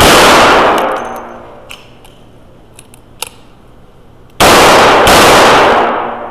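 Revolver shots in an indoor range: the ringing tail of one shot dies away at the start, then two shots come about three-quarters of a second apart near the end, each with a long echoing decay. A few faint clicks fall in the quiet gap between.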